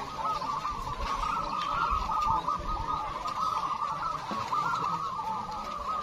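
A chorus of many caged zebra doves (perkutut) cooing at once, their short rolling coos overlapping into a continuous chatter of notes.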